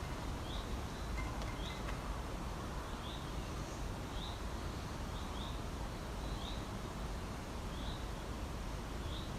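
A small bird chirping over and over, short rising chirps about once a second, over a steady low background rumble of outdoor air.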